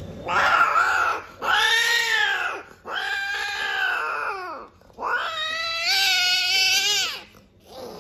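A female cat in heat gives four long, loud mating yowls. Each rises and then falls in pitch, and the last is the longest. This is the cry a queen gives during mating with the tom.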